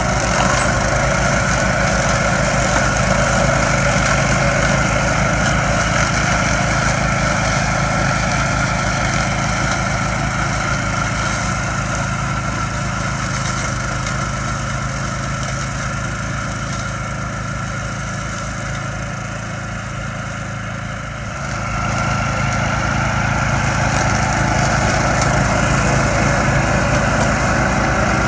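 Small gasoline engine of a tow-behind brush mower running steadily while mowing. The sound eases off a little about 18 seconds in and comes back up shortly after 21 seconds.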